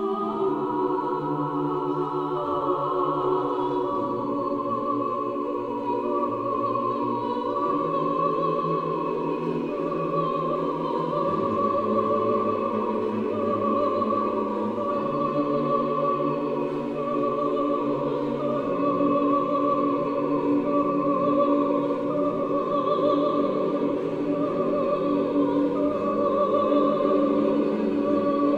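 A choir singing slow, sustained chords that change every few seconds, in the manner of Russian Orthodox church music.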